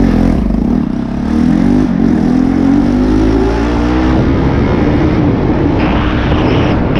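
Bajaj Pulsar NS200 motorcycle's single-cylinder engine under way. Its pitch climbs over the first few seconds as it accelerates, then holds steady, with a hiss rising near the end.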